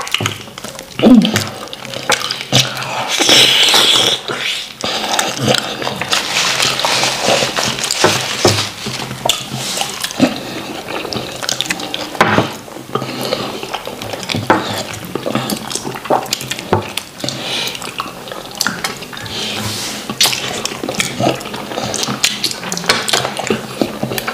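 Close-miked eating sounds of wheat fufu and drawy ogbono soup eaten by hand: wet, sticky squelching from fingers working the swallow in the soup, and chewing, as a busy run of small clicks.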